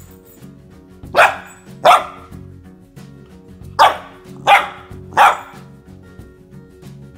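Golden retriever puppy barking five short times, two then three, over background music.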